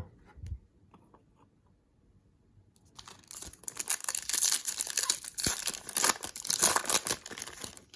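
Foil trading-card pack wrapper being torn open and crinkled, starting about three seconds in and continuing with dense crackling.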